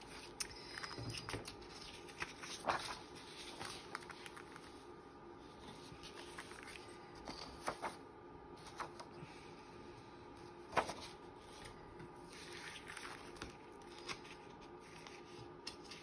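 Sheets of paper and card being handled and shuffled: faint rustling with scattered light taps and clicks, one sharper click about eleven seconds in.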